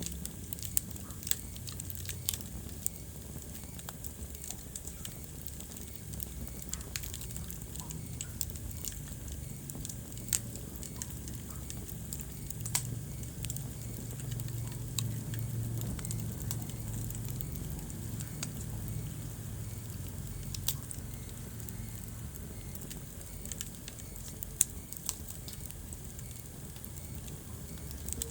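Wood fire burning in a fireplace: a steady low rumble of the flames with scattered sharp crackles and pops, a few louder pops standing out.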